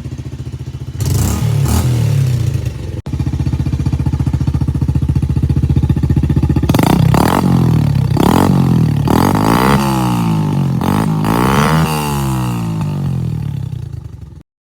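Kawasaki KX65 two-stroke dirt bike engine idling and being blipped: a short rev early on, then a run of repeated throttle blips with the pitch rising and falling, before the sound cuts off suddenly near the end.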